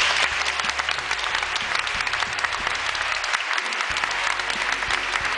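Audience applauding: a steady round of dense clapping from a large crowd.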